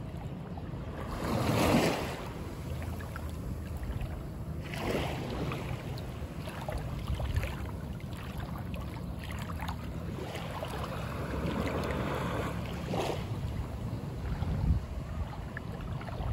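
Small waves lapping and washing onto the sand at the water's edge, swelling a few times, over a steady rumble of wind on the microphone.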